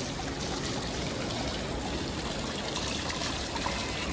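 Water spilling down a stepped stone fountain into a shallow pebbled pool: a steady trickle and splash.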